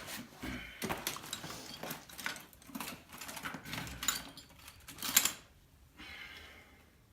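Irregular metallic clicking and clattering of hand tools and sockets being handled, with a louder knock about five seconds in, then it goes quiet.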